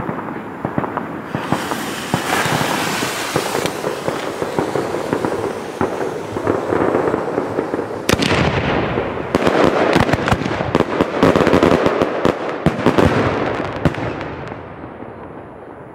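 Aerial firework shells: steady crackling with a stretch of hiss, then a sharp bang about eight seconds in, followed by a dense run of loud cracks and crackling that dies away near the end.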